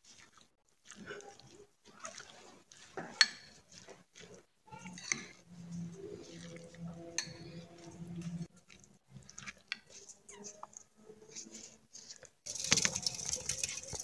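A metal spoon stirs chopped tomato, onion and parsley in a ceramic bowl, making wet squelching with irregular clinks and scrapes against the bowl. About twelve seconds in, this gives way to the louder hiss and crackle of burning charcoal.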